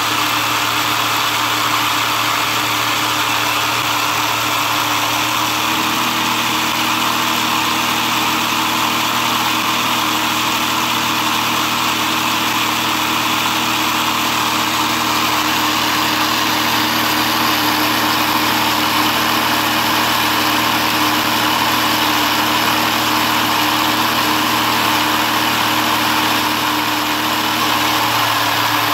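Motorised LEGO model engine running steadily, its electric motor turning the plastic crankshaft, pistons and timing belt with a constant whirring hum. The hum's pitch shifts slightly about five seconds in.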